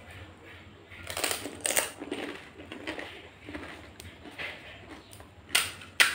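Crisp fried fuchka (pani puri) shells crunching as they are eaten: two loud crunches about a second in, softer crunchy chewing after them, then two sharp cracks near the end as the next hollow shell is pressed open with a thumb.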